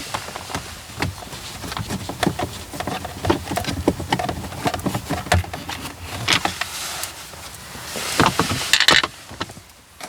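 Phillips screwdriver backing screws out of plastic dash trim: a run of small clicks and scrapes, busier and louder in the last few seconds.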